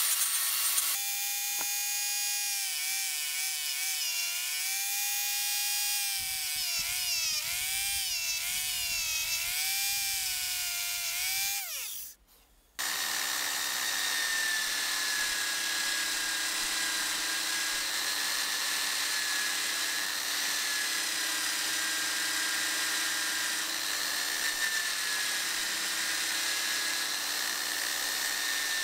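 An angle grinder with a sanding disc runs against an aluminium drill housing, its whine wavering up and down as the load changes, then winds down about twelve seconds in. After a short pause, a drill press spins an abrasive wheel with the housing held against it: a steady whir with a high whine.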